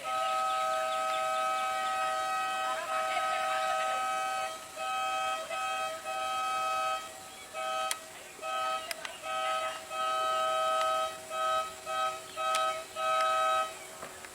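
A vehicle's two-tone horn sounding one long blast, then honked in a string of short and medium blasts of uneven length, ending with a longer blast.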